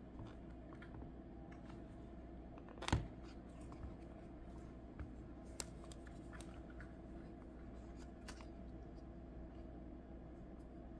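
Scattered clicks and taps of an e-reader being handled in and out of a clear plastic case, the sharpest about three seconds in, over a steady low hum.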